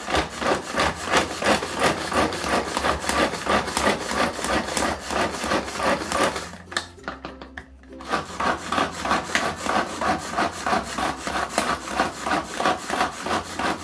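Hand-pulled cord vegetable chopper mincing vegetables: the cord is yanked over and over, spinning the blades in a fast rhythmic whir-and-rattle. The pulling stops for about a second and a half midway, then starts again.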